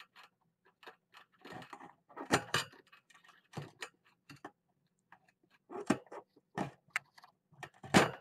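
Kittens playing with plastic zip ties right at the microphone: irregular clicking and rattling, with a few louder knocks.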